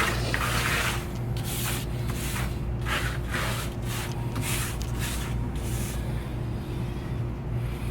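A cloth wiping out the inside of a vending machine cabinet: about eight short swishing strokes in the first six seconds, then they stop. A steady low electrical hum runs underneath.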